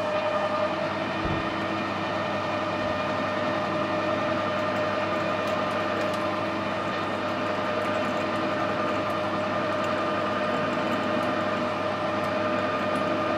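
Metal lathe running at a steady speed with a constant whine, a small twist drill in the tailstock chuck drilling into the end of a spinning case-hardened steel pin.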